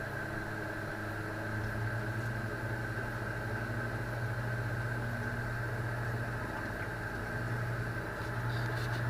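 Electric lawnmower running steadily, a continuous low motor hum with a thin high whine over it.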